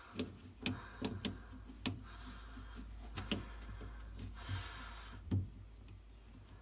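Light clicks and taps from the metal fuel filler pipe and its hose clamp being handled and seated in the rubber collar, about eight of them at uneven intervals.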